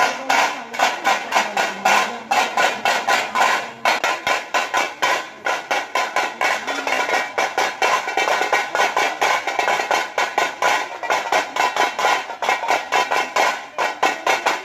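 Drums played in a fast, steady beat, several sharp strokes a second.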